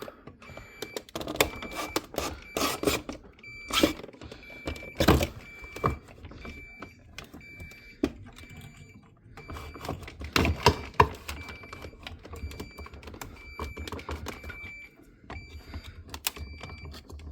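Irregular plastic clicks, knocks and rattles as a Samsung refrigerator's ice-maker auger assembly is unlatched and worked out of its tight housing. A high electronic beep repeats steadily in the background, typical of the refrigerator's door-open alarm.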